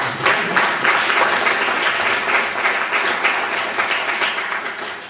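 Audience applauding with many hands clapping, slowly dying down toward the end.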